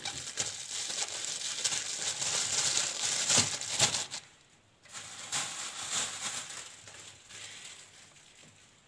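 Thin plastic freezer bag full of strawberries crinkling as it is handled and tied shut, with a brief pause just after four seconds in and fainter rustling after it.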